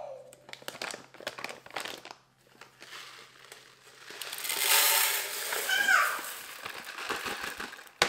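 A plastic bag crinkling as it is handled and opened, then dry rice pouring from the bag into a plastic canister with a loud rushing hiss from about halfway through.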